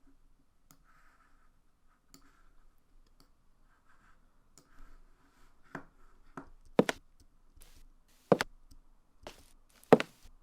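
Three footsteps, about a second and a half apart, with faint mouse clicks before them.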